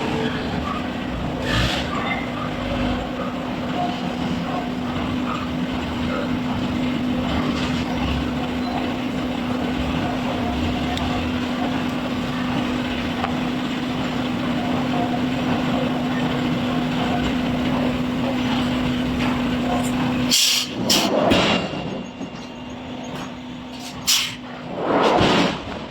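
Steady industrial machinery noise with a low hum, which stops abruptly about 20 seconds in and is followed by a few short, loud bursts of sound.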